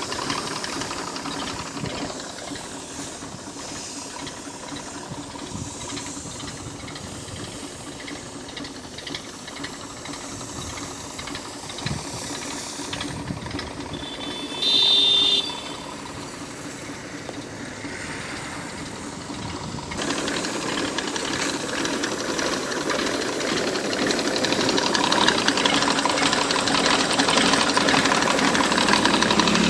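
Massey Ferguson tractor engine running steadily, driving a PTO-powered pesticide sprayer pump, with a hissing, rattling mechanical drone that grows louder over the last third. About halfway through, a brief, loud, high-pitched tone sounds for about a second.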